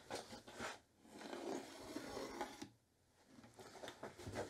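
Faint pencil scratching along wood as a line is traced around the base of a plywood box onto a plywood sheet. It pauses briefly about three seconds in, then resumes with a few light taps near the end.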